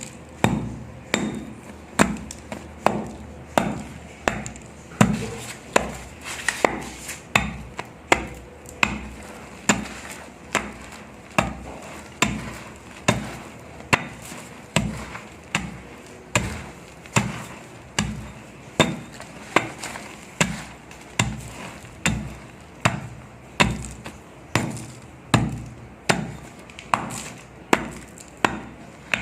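Dry, dusty sand crumbling with a crunch, over and over in a steady run of about three crumbles every two seconds.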